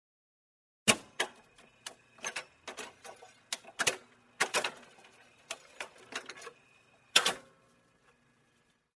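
Jukebox mechanism clicking and clunking. A run of irregular mechanical clicks and knocks starts about a second in and lasts about six seconds, over a faint hum. The loudest knocks come at the start and near the end.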